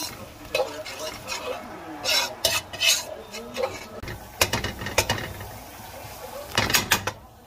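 Slotted metal spatula scraping and clacking against a steel wok, stirring minced garlic as it fries in oil. The strokes come in bursts, the loudest in the middle and near the end.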